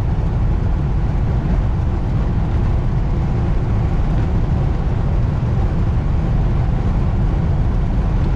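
Steady low road and engine rumble inside a Mitsubishi Delica minivan's cabin as it drives along.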